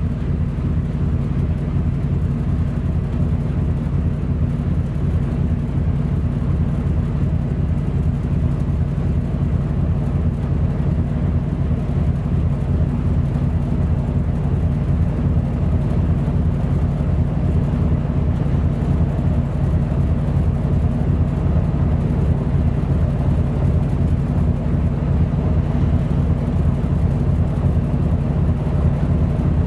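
Ship's diesel engine running steadily at cruising speed: a loud, low, pulsing drone.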